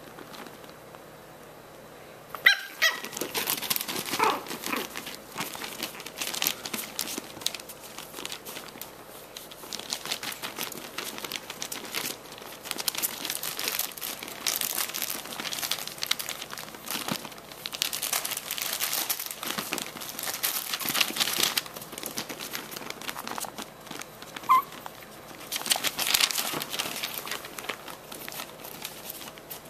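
Chihuahuas scrambling through a fabric pop-up play tunnel. The tunnel fabric and the newspaper under it rustle and crinkle in irregular waves, starting about two seconds in. A short high yip comes near the start and again near the end.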